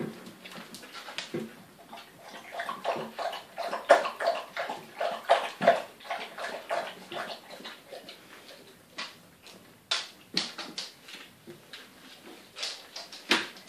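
Goldador puppies scrambling and play-fighting on plastic-covered bedding: rustling and scratching of paws and claws, with a run of short puppy squeaks and grunts in the middle.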